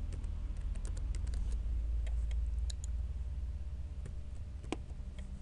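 Computer keyboard being typed on: a quick run of key clicks over the first two seconds, then a few scattered clicks, with one sharper click about four and a half seconds in, over a steady low hum.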